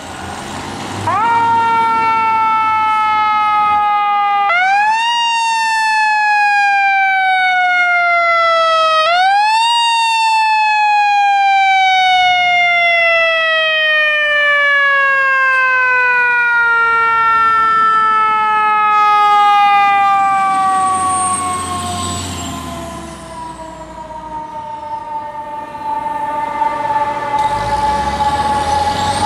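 Fire truck's mechanical siren winding up and then slowly coasting down. It is revved three times, about a second in, about four seconds in and about nine seconds in, then falls away over a long stretch. It winds up again at the very end.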